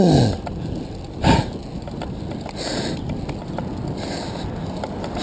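Handcycle rolling along a paved street: steady tyre and wind noise, with the rider's breathing puffing out twice, a second or so apart. A loud pitched tone sliding downward dies away right at the start, and a brief loud knock comes about a second in.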